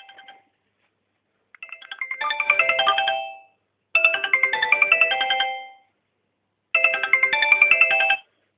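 Sony Xperia Sola ringtone melody from the phone's speaker, breaking up into short bursts of about two seconds with a second or so of silence between them. The first bursts trail off and the last stops abruptly. This broken playback is the sound output fault that the owner blames on Sony's firmware.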